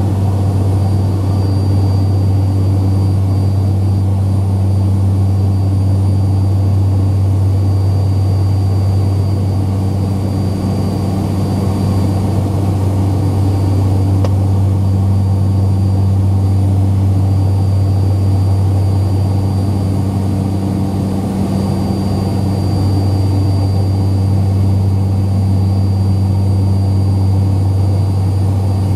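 Steady cabin drone of a turboprop airliner in cruise: a loud, even low hum, with a faint high whine that comes and goes.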